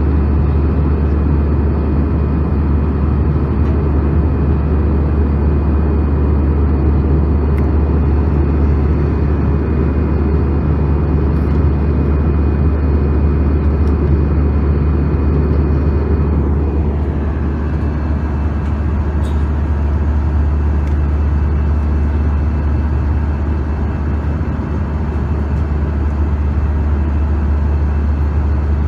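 Steady cabin noise of an Airbus A320-200 in its climb, heard from a window seat: a deep engine and airflow rumble. A thin high whine drops to a lower pitch about seventeen seconds in, and the noise eases slightly.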